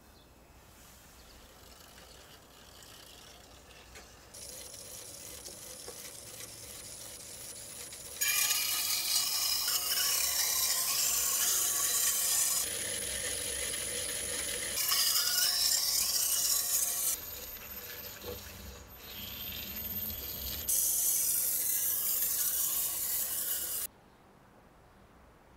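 Steel kitchen-knife blade being ground against a rotating water-fed grinding wheel: a loud rasping scrape in several short passes that start and stop abruptly, some with a faint steady high whine. Before the grinding begins there is only a faint trickle of water.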